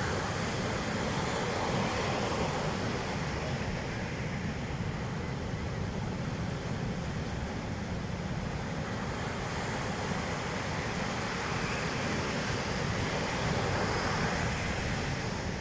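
Ocean surf breaking and washing on a beach, a continuous rushing that swells a little about two seconds in and again near the end, with wind buffeting the microphone.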